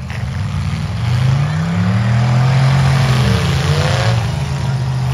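Demolition derby car's engine revving hard under load, its pitch rising about a second in, holding, then dropping off about three and a half seconds in.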